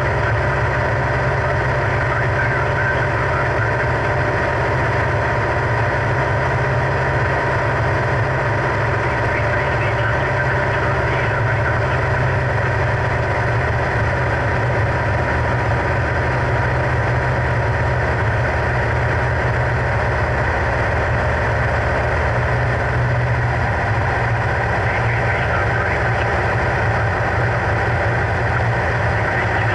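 Single-engine light aircraft's piston engine and propeller running at a steady, even drone, heard from inside the cabin.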